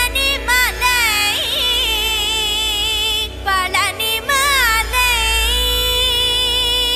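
Devotional song with a melody in rapid, ornamented pitch bends over a deep, steady bass. About five seconds in, it settles on a long held note.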